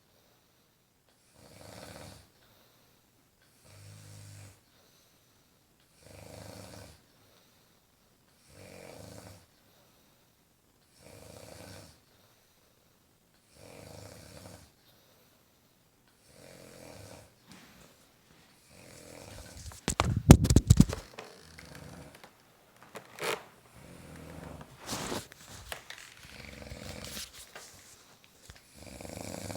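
A woman snoring in her sleep. Regular snores come about every two and a half seconds. About twenty seconds in comes a much louder, ragged, crackling snore, and the snores that follow are louder and irregular.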